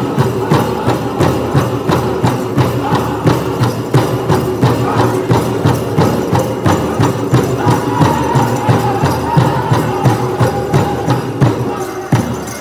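Powwow drum group singing a chanted song over a steady, even beat on a large shared drum.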